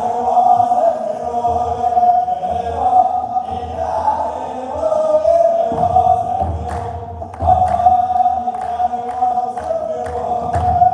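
A men's choir chants an Ethiopian Orthodox hymn in unison, with steady beats on a large kebero drum and hand clapping. The singing breaks off briefly about seven seconds in, then comes back in strongly.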